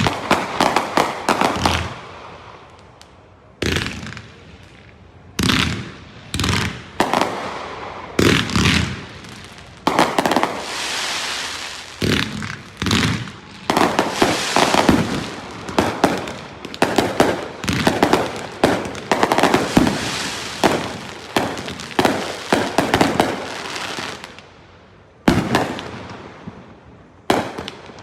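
Fireworks finale: firework shells bursting one after another in quick succession. The bangs thicken into an almost continuous barrage through the middle, with short lulls a couple of seconds in and again near the end.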